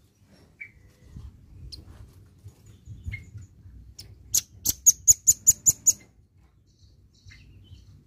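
Velvet-fronted nuthatch calling: a few scattered faint chips, then about halfway through a fast, loud run of about eight sharp, high notes lasting under two seconds.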